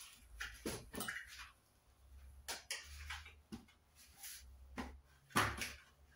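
Metal tubes and plastic connectors of a two-tier expandable clothes hanger knocking, clicking and scraping against each other as they are fitted together, a string of light knocks with a louder knock about five seconds in.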